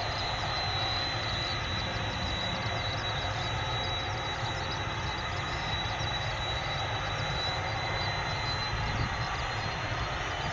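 Far-off jet engines of a Boeing 767-300ER, General Electric CF6-80C2 turbofans, running steadily on the runway: a low rumble and hiss with a thin high whine that fades near the end.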